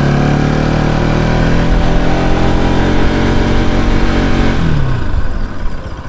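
Motorcycle engine running steadily at high revs, then falling in pitch about five seconds in as the throttle closes, settling to a quieter, pulsing low-speed running.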